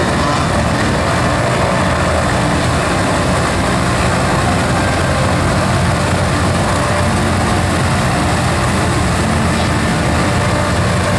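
Steady, loud engine drone that does not change in level or pitch, with a noisy hiss over it.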